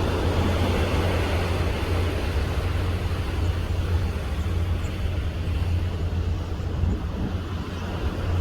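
Steady low rumble of a vessel's engine under wind and sea noise; the rushing noise eases after about three seconds.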